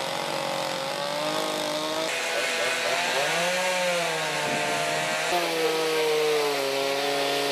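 Chainsaws running as carvers cut into wooden sculptures, the engine pitch dipping and rising with the cuts. The sound jumps abruptly to another saw about two seconds in and again around five seconds.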